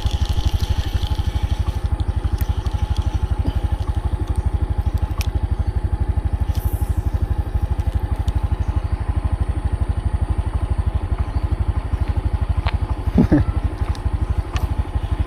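Honda motorcycle engine idling steadily, its firing pulses even throughout, with a few faint clicks and a brief vocal sound near the end.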